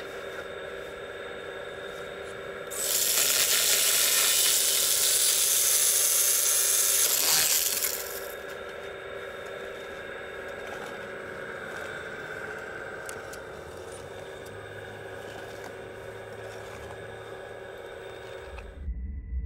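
Small electric-motor chainsaw of an RC excavator's grapple saw cutting through a thin tree trunk: a loud high-pitched buzz starts about three seconds in and lasts about five seconds. Around it runs the steady whine of the model's hydraulic pump, and the sound changes abruptly near the end.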